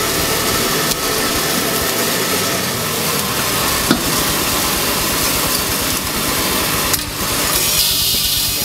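Coffee roaster's cooling tray running: the mixing arms stir freshly roasted beans while the cooling fan pulls air through them, a steady rushing with rustling beans and a couple of small knocks.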